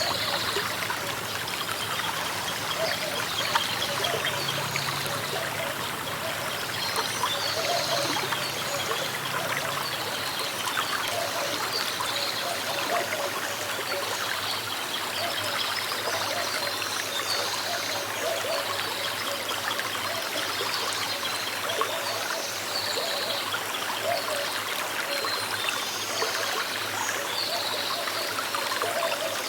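A small river flowing steadily, its water trickling and burbling.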